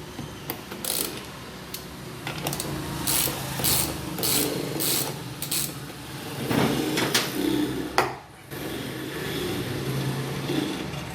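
Ratchet wrench with a 17 mm socket loosening a bolt on a washing machine's underside: a string of ratcheting clicks and metal rubbing at uneven intervals, with a sharp click about eight seconds in.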